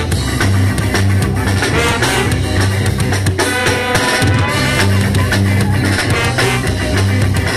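Ska band playing loud, with drum kit, bass and guitar; an instrumental stretch without singing.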